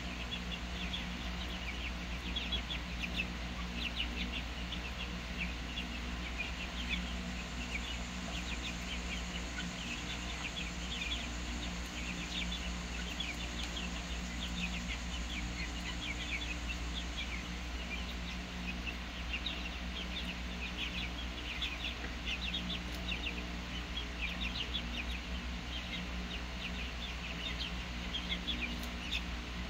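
A flock of young chickens peeping and cheeping in many short, high calls, over a steady low hum.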